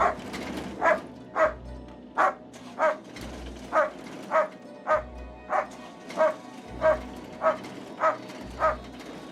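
Dog barking over and over at a steady pace, about three barks every two seconds.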